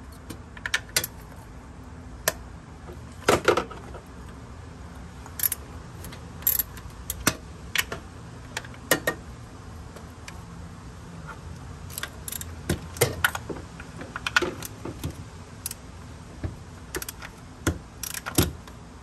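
A 3/8-inch ratchet with a 10 mm socket clicking and clinking on the bolts that hold down the ignition coils. The sharp metallic clicks are irregular, with short bursts around the 3-second mark, between 12 and 14 seconds in, and near the end.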